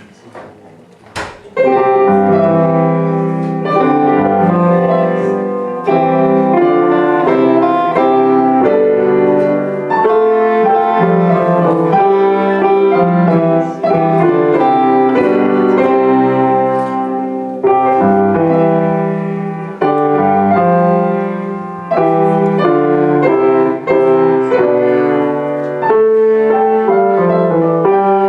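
Piano playing a classical piece, starting about a second and a half in just after a short knock, with chords and melody struck every second or two.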